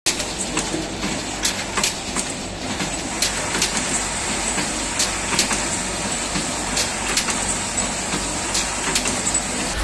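Automatic bottle filling and capping machine running, a steady mechanical noise with many irregular sharp clicks.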